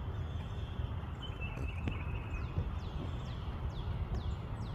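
Steady low outdoor rumble, with several quick, faint, downward-sliding bird chirps in the second half and a single tap about two seconds in.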